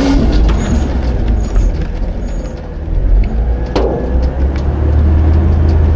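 Autocar/Heil Half/Pack garbage truck running through a packing cycle: a loud, steady low rumble of the engine and packer hydraulics, with a sharp clank about four seconds in.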